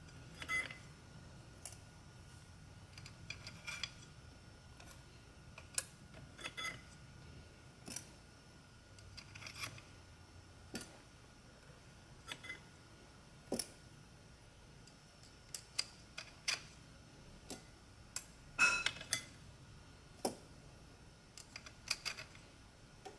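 Yamaha YXZ1000R clutch plates, alternating oil-soaked friction plates and steels, being slid one by one onto the clutch basket: light metallic clicks and clinks at irregular intervals, with the loudest clatter about three-quarters of the way through.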